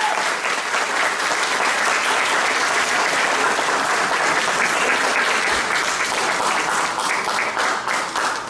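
Audience applauding steadily. The applause thins out near the end into a few separate claps.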